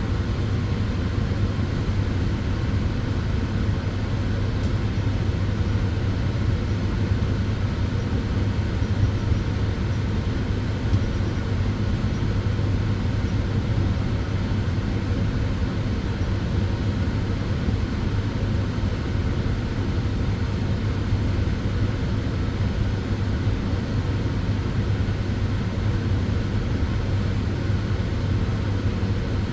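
Sunbed (tanning bed) running: a steady whoosh of its cooling fans with a low, even hum underneath, unchanging throughout.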